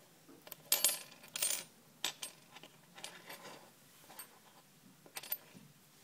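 Handmade metal fishing hooks clinking against each other and being set down on a wooden tabletop: a quick cluster of sharp metallic clicks about a second in, then scattered lighter taps, with two more sharp clicks near the end.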